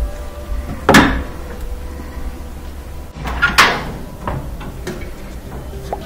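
Sharp knocks and clicks of the Samsung dryer's panels and fittings being handled during disassembly: a loud knock about a second in, another about three and a half seconds in, with lighter clicks between them.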